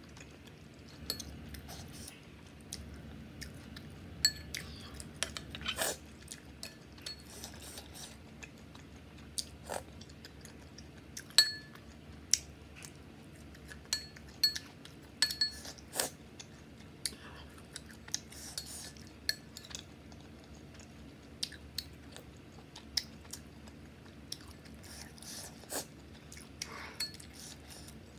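Metal spoon clinking and scraping against a ceramic bowl, many sharp clinks each with a short ring, along with chewing.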